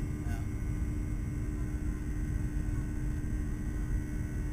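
Jet airliner's engines running on the ground, heard inside the passenger cabin: a steady low rumble with a constant hum.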